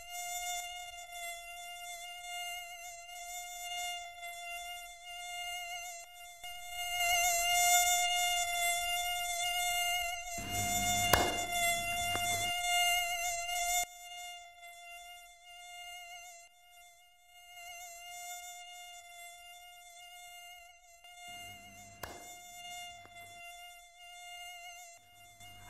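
High, steady whine of a mosquito in flight, buzzing around a person. It swells louder about seven seconds in and fades again after about fourteen seconds. There is a sharp knock about eleven seconds in and a fainter one near twenty-two seconds.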